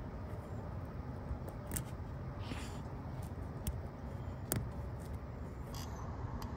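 Small, scattered metal clicks and scrapes of an Allen wrench picking packed oil and grime out of a vacuum-pump bolt head, over a steady low rumble.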